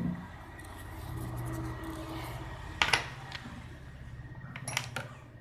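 A felt-tip marker scratching around a bangle on a stiff buckram sheet, then a few sharp clinks about three and five seconds in as the bangle is lifted and set down, over a steady low hum.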